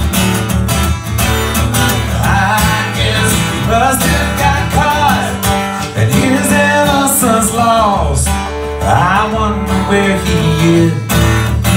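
Live country trio playing an instrumental passage: a flute melody over two strummed acoustic guitars.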